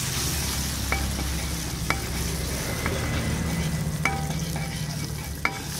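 Frozen balado chili paste sizzling in hot oil in a metal wok while a metal spatula stirs and scrapes it. The spatula strikes the wok about five times, each with a short metallic ring.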